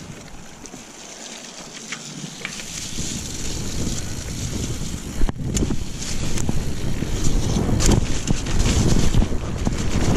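Mountain bike riding fast down a dirt trail: wind noise on the microphone and tyre rumble over the ground, with frequent knocks and rattles from the bike, growing louder as speed builds after the first couple of seconds.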